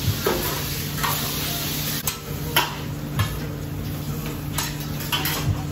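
Diced chicken sizzling on a steel flat-top hibachi griddle while a metal spatula scrapes and taps against the plate, turning it as it is par-cooked, a stroke every second or so. A steady low hum runs underneath.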